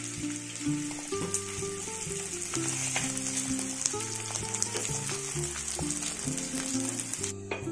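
Chopped onions sizzling steadily in hot mustard oil in an aluminium kadhai, with a few light clicks of a wooden spatula. Background music with plucked notes plays underneath, and the sizzle cuts off suddenly near the end.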